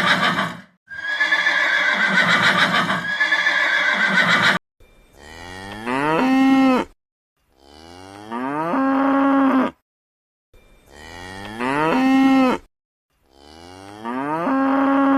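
A horse whinnies through the first few seconds. Then a cow moos four times, identical calls each about two seconds long that rise in pitch and then hold steady.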